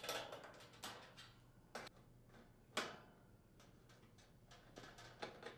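Faint, scattered clicks and taps of a nut driver and screws being worked out of a range's upper rear access panel, about half a dozen at irregular spacing.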